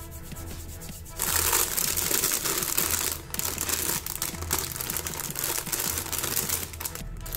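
Clear plastic bags around plastic model kit runners crinkling as they are handled, starting about a second in.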